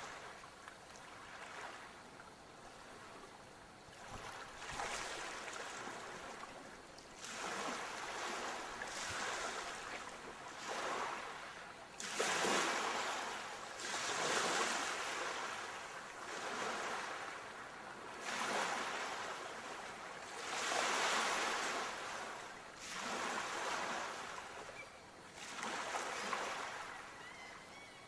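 Sea waves breaking and washing up the shore, the surf swelling and falling away every couple of seconds, louder in the middle of the stretch.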